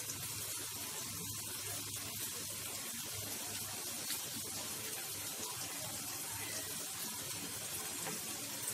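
Chopped spinach and onions sizzling steadily in oil in a pan, with a faint tick about four seconds in.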